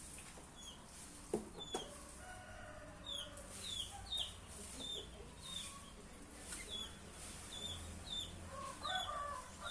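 Birdsong: a run of short, high, falling chirps about two a second, with lower warbling whistled phrases about two seconds in and again near the end, the phrases being the song of a sooty-headed bulbul (kutilang).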